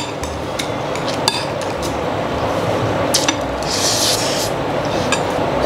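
Metal spoon and chopsticks clinking and scraping against a ceramic bowl of rice: a few sharp clinks, with a short scrape about two thirds of the way through.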